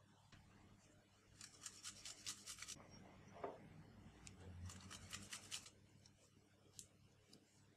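Garlic cloves grated on a small handheld metal grater: two bouts of quick, even rasping strokes. The first starts about a second and a half in and lasts just over a second. The second comes a couple of seconds later and is slightly shorter.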